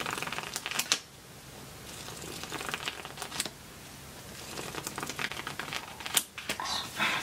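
Pages of a thick softcover textbook being flipped and riffled with the thumb: quick papery flutters and ticks in several spurts, with a quieter lull around the middle.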